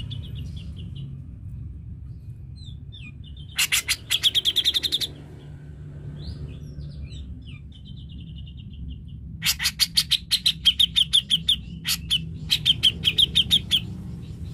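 Grey-cheeked bulbul (cucak jenggot) calling: soft stuttered runs of notes, broken by two loud bouts of fast, harsh rattling chatter, one about four seconds in and a longer one from about nine and a half seconds with a short break near twelve. A steady low rumble runs underneath.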